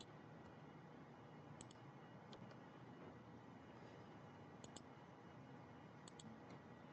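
Faint computer mouse clicks, scattered every second or two and several in quick pairs, over a low steady hiss.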